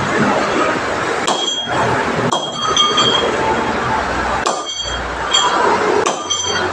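Metal being struck during pipe work: sharp ringing clinks, about six of them at uneven intervals, over a steady hissing background.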